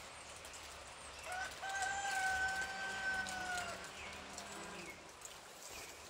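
A rooster crowing once: a short opening note, then a long held final note that sags slightly in pitch as it ends.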